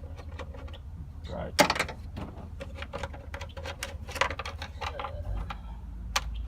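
Hand tools working on a car engine: a string of metallic clicks and clanks, with one sharp knock about a second and a half in. A steady low hum runs underneath.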